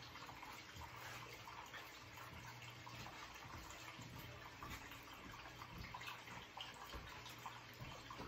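Water running steadily down a small sluice box's mat into a tub of water while black-sand concentrates are run through it, faint, with a steady low hum underneath.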